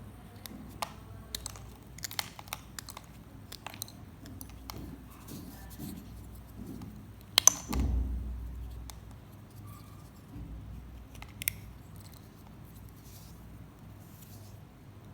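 Dry multani mitti (fuller's earth clay) crunching and snapping in a string of small, irregular crackles. A louder crack and a low thump come about halfway through.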